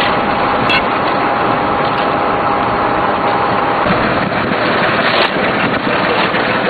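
Steady engine running, heard as a dense noise, with a thin steady tone that stops about four seconds in.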